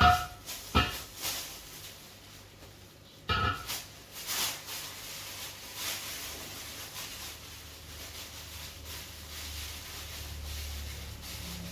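A few sharp knocks and clatters in the first five seconds, the first carrying a brief ring, then a low steady hum that grows slightly toward the end.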